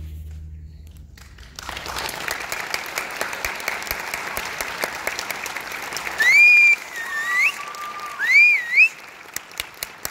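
The band's last low note dies away, and audience applause breaks out about a second and a half in. Between about six and nine seconds in, loud rising and swooping whistles from the audience ride over the clapping.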